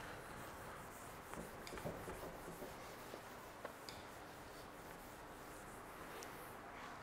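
Faint rubbing of a whiteboard eraser wiping marker off a whiteboard, with a few light clicks.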